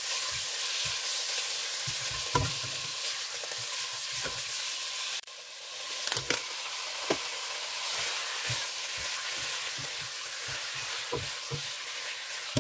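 Chicken pieces sizzling in hot oil in a pan as they brown, a steady frying hiss with a few light knocks of stirring scattered through it.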